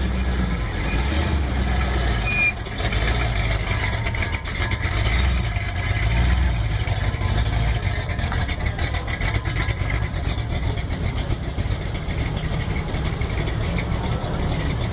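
Classic car engines idling and rumbling, a steady low drone with no single event standing out.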